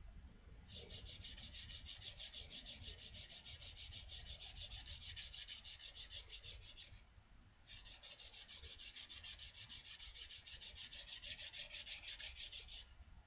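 Stanley spokeshave's steel blade being sanded with 120-grit sandpaper to scrub off rust and dirt, in rapid, even back-and-forth strokes at about five a second. Two long runs, with a short pause a little past halfway.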